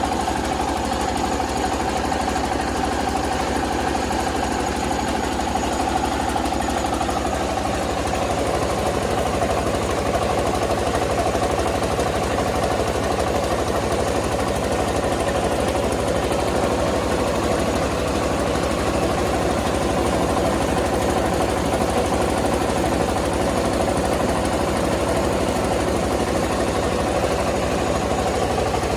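Engine-driven rice milling machine running steadily, with a fast, even engine beat under a constant mechanical hum; the hum's pitch shifts slightly about eight seconds in.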